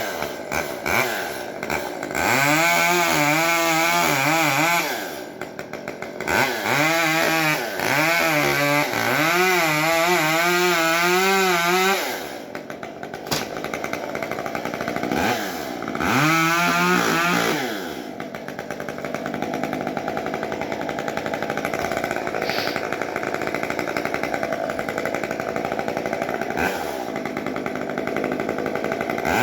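Chainsaw revved to full speed three times, each spell a few seconds long with its pitch wavering up and down, dropping back between them and for the last ten seconds to a steadier, lower running.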